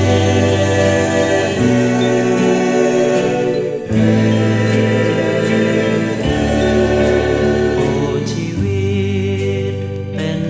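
Intro of a 1971 Thai pop song played from a vinyl record: held chords with wordless group vocal harmonies, changing about every two seconds.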